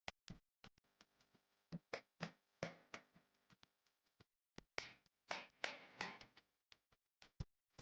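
Raindrops tapping irregularly on a hard surface: scattered single clicks, a few in quick clusters, with a faint patter of rain between them.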